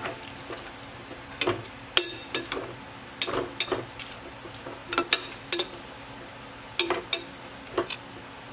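Metal spoon stirring pork and sauce in an aluminium pot, knocking and scraping against the pot's sides in irregular clinks, about a dozen, over a faint steady hum.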